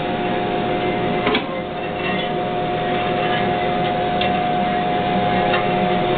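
Vectrax 18-inch vertical band saw running unloaded, a steady motor and blade hum with a whine, and a single short knock about a second in.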